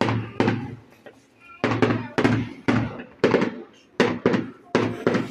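Fireworks display going off: about a dozen sharp bangs in quick succession, roughly two a second, each trailing off briefly.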